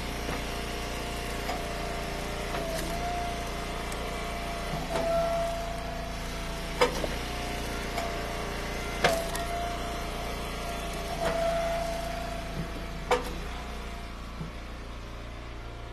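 Eastonmade Ultra hydraulic wood splitter running steadily, its whine dipping and shifting in pitch every few seconds as it works. Four sharp knocks of firewood pieces sound at intervals.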